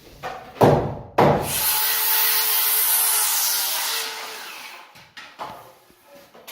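Two heavy knocks against wood, then a power tool working wood for about three seconds before it fades out.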